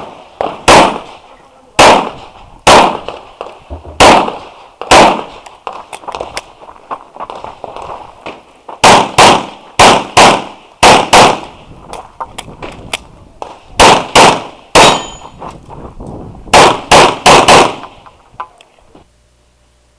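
Glock 34 9mm pistol firing a practical-shooting stage: about twenty shots in quick strings of two to seven, with short pauses between strings, the last shots about a second before the end.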